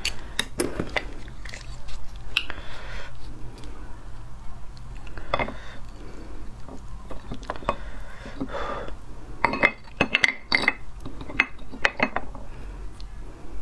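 Hard whelk shells clicking and knocking against each other and the plate as the meat is pried out of a shell with a chopstick, with a quick run of sharp clicks near the end.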